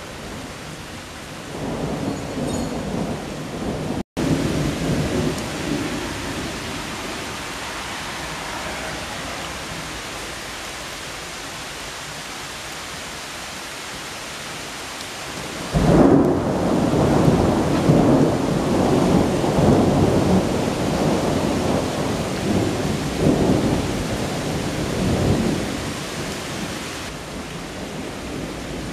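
Thunderstorm: steady heavy rain with thunder rumbling about two seconds in, then a sudden loud thunderclap about sixteen seconds in that rolls on in swells for some ten seconds.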